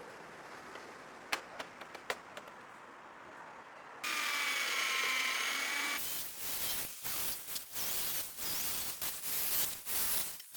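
Sheet-metal bodywork tool sounds: two light taps, then a power tool running steadily for about two seconds, then a run of short, irregular, hissing bursts of metalwork.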